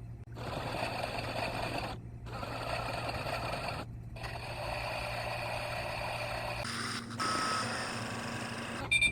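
Theo Klein Miele toy washing machine running a wash cycle: its small motor turns the drum with a steady rattling whir that stops briefly about every two seconds as the drum pauses. About two-thirds of the way through the sound changes character, with a short beep-like tone.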